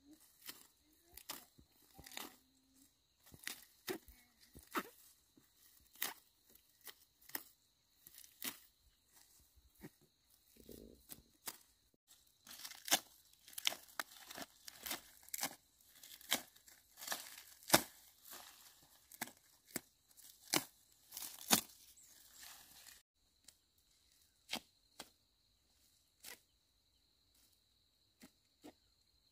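Grass and weed stalks being pulled up by hand, the roots ripping out of dry soil: a string of irregular sharp tearing and snapping sounds, coming thickest through the middle.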